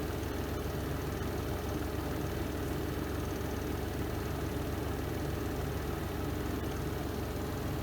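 Spin tub of a Renova semi-automatic twin-tub washing machine running through its spin cycle, a steady low hum.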